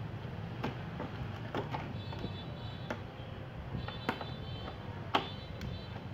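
Large clear plastic water bottle being handled and turned by hand, giving scattered sharp clicks and crackles of thin plastic, the loudest about five seconds in, with a couple of faint high squeaks, over a steady low background rumble.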